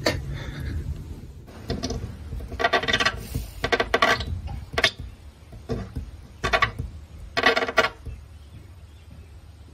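A dog's teeth and mouth rubbing and scraping against window glass: a run of short squeaks and clinks that stops about eight seconds in.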